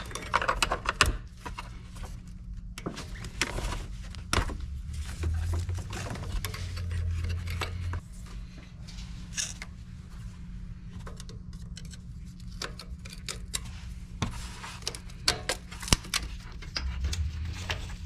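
Hand tools working on a car's starter bolts and wire connectors: a wrench clicking and clinking against metal bolts in irregular runs. A steady low hum sits underneath, getting louder for a few seconds around the middle.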